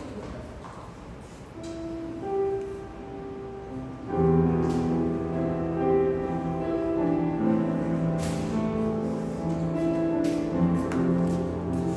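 Instrumental background music: sparse held notes at first, growing fuller and louder with sustained chords about four seconds in.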